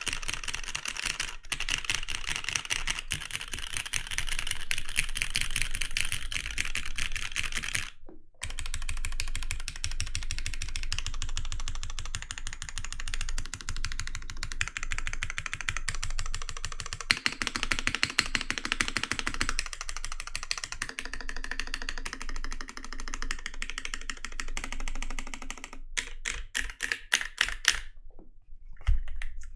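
Custom Rukia Works Korsa CE TKL mechanical keyboard with lubed, filmed Cherry MX2A Black linear switches and GMK Lime keycaps, typed on fast in a dense stream of keystrokes. There is a brief pause about eight seconds in, and near the end slower, separate key presses.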